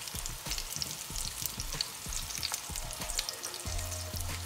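Plant-based meatballs frying in hot oil in an enamelled cast-iron Dutch oven: a steady sizzle full of small crackling pops, while tongs shift the meatballs about in the pot.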